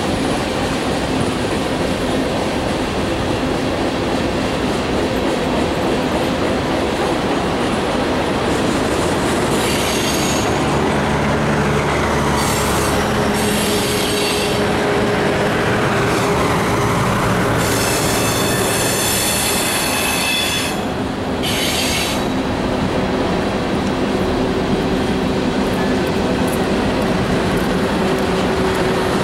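Freight cars of a mixed freight train (tank cars and covered hoppers) rolling past with a steady rumble of wheels on rail. High-pitched steel wheel squeal comes in several bursts from about ten seconds in, the longest a few seconds past the middle.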